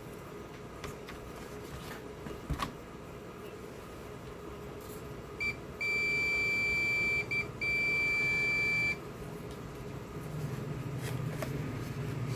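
Digital multimeter's continuity buzzer sounding a steady high beep as its probes touch the circuit board: a short blip, then two long beeps of about a second and a half each with a brief break between. A continuous beep means a low-resistance path, a sign of a short between the probed points.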